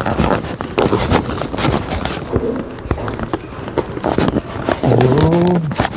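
Paper takeout bag crinkling and rubbing right against the phone's microphone in an irregular stream of crackles, with a short voice sound about five seconds in.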